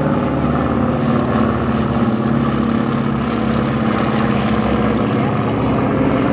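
Junkers Ju 52 trimotor flying past overhead, its three propeller engines giving a loud, steady drone.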